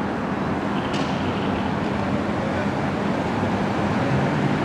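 Slow-moving cars approaching along the road, with steady engine and road noise and a low hum. There is a single short click about a second in.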